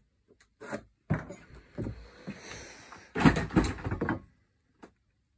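Knocks and scraping of timber lengths and a square being handled and set against each other, with a loud cluster of several wooden knocks about three seconds in.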